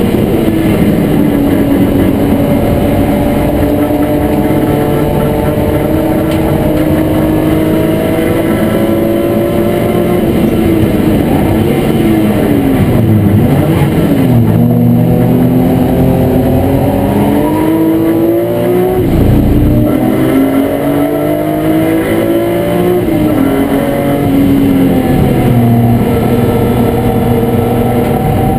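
BMW E36 M3 race car's straight-six engine at racing speed, heard from inside the cabin. Its pitch climbs steadily, then drops and rises again several times around the middle as at gear changes.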